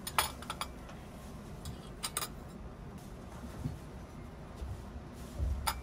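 China and metal cutlery clinking: a teacup and saucer and a metal fork tapping on china, in short sharp clinks. There is a cluster at the start, another about two seconds in and one near the end, over the steady low rumble of the moving train.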